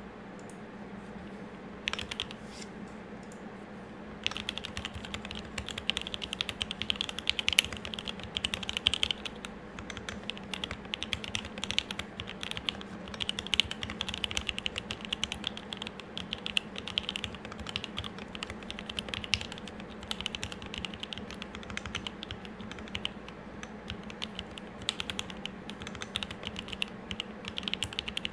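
Typing on a custom M65-A mechanical keyboard with a brass plate, lubed Tealios 67g linear switches and GMK keycaps. A couple of single keystrokes come about two seconds in, then fast, continuous typing starts about four seconds in.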